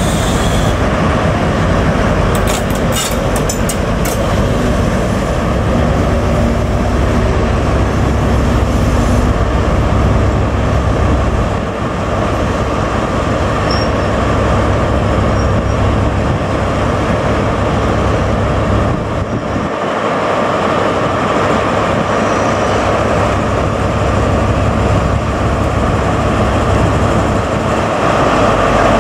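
A diesel train running close by with loud, steady engine and rail noise. There are a few sharp clicks about two to four seconds in.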